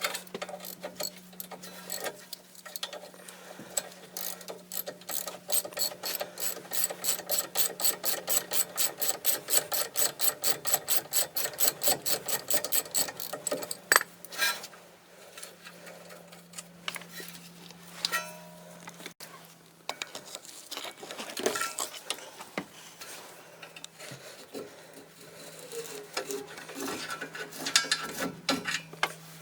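Hand ratchet wrench cranked in steady strokes, clicking at about four clicks a second for some ten seconds. Scattered clinks and clatter of metal tools and parts follow. A steady low hum sits under it all.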